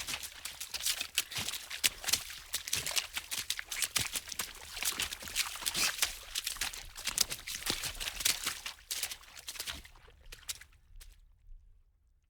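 Water splashing quickly in a rapid, irregular stream of sharp splashes. The splashes thin out and stop about eleven seconds in.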